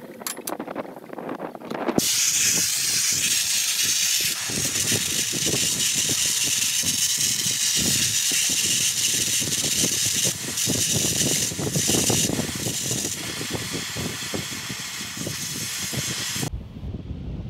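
Blow torch flame hissing loudly and steadily as it burns through the steel of a trailer tongue to widen a bolt hole, starting about two seconds in after a few light clicks and cutting off suddenly near the end.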